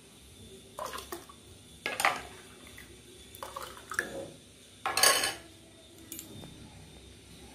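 A steel spoon clinking against a glass bowl and a glass mug as juice is ladled from the bowl and poured into the mug, with small liquid splashes. The clinks come every second or so, with the loudest clatter about five seconds in.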